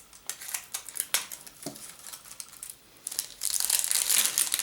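The wrapping of a giant surprise egg crinkling and tearing as it is handled and opened. It starts as scattered crackles, then turns into continuous, louder crinkling a little past three seconds in.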